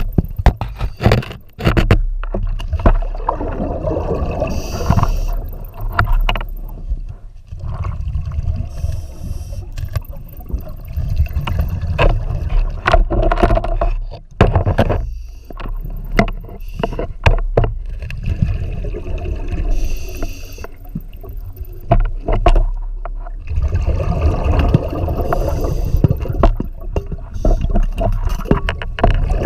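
Scuba diver's breathing heard underwater through the regulator: long rumbling, gurgling rushes of exhaust bubbles, broken by a few brief quieter gaps between breaths, with gear scraping against the rock of a tight flooded cave passage.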